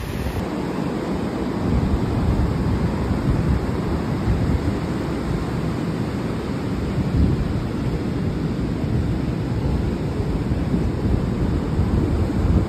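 Ocean surf breaking and washing up the sand, under a heavy, fluctuating rumble of wind buffeting the microphone.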